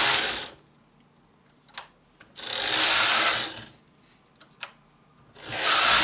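Carriage of a Brother KH260 bulky knitting machine slid back and forth across the needle bed. There are three passes, each a rush of noise lasting about a second and a half: one ends just under a second in, one comes in the middle, and one starts near the end. A couple of small clicks fall in the gaps. These are short rows in partial (holding) knitting, shaping the ear.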